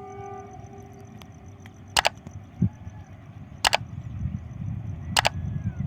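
Low rumble of an approaching WDM3D ALCO diesel locomotive, growing louder, broken by three sharp double clacks about a second and a half apart that are louder than the rumble. A faint steady high whine runs underneath.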